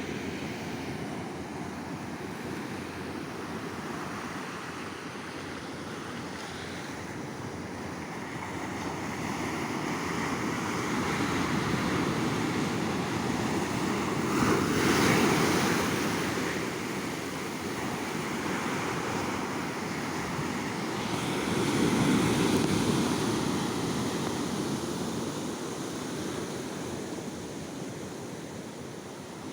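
Ocean waves breaking and washing up a beach. The surf swells and falls back, loudest with one wave about halfway through and another a few seconds later, with some wind on the microphone.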